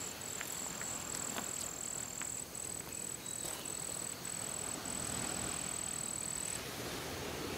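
An insect trilling in one thin, high note, broken into short pulses at first and then held steady. It stops about six and a half seconds in, over faint outdoor ambience with a few soft ticks.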